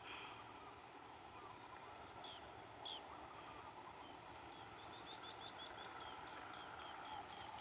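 Faint bird calls: short, repeated high chirps, with a quick run of them in the second half.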